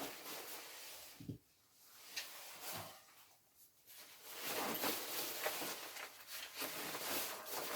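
A light jacket's fabric rustling as it is handled, with two soft knocks before the rustling builds over the second half.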